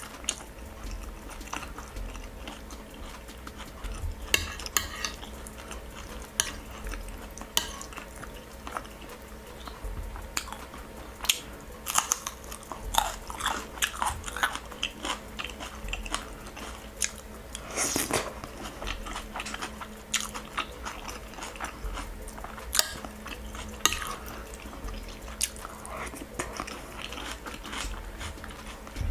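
Mukbang eating sounds: chewing and biting food, with a fork and spoon clinking and scraping on a ceramic plate in short, irregular clicks.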